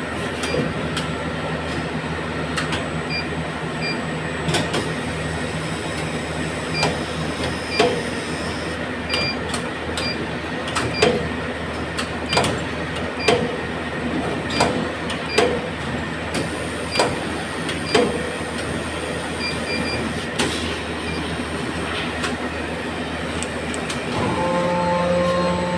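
Haitian plastic injection molding machine running: a steady machine hum with repeated sharp clunks and clicks, some of them ringing, and short high beeps through the middle. Near the end a new steady whine comes in and the sound gets louder.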